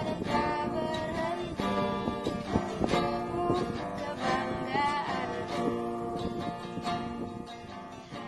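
Background music that grows gradually quieter toward the end.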